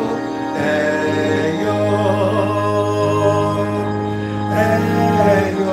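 Slow worship song on an electronic keyboard, held chords under a man's sung melody.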